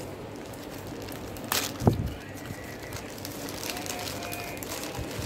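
Glossy gift-wrapping paper crinkling and tearing as a present is unwrapped by hand, with a sharp crackle and then a thump near two seconds in.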